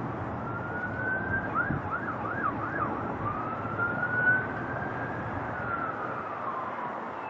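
An emergency vehicle siren wails: about four quick yelps a little over a second in, then a long slow rise and fall in pitch. Underneath is the steady engine noise of a jet airliner on approach.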